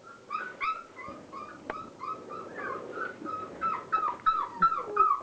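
Five-week-old Border Collie puppies whimpering and yipping in a quick run of short, high-pitched, downward-bending cries, several voices overlapping, with a few sharp clicks.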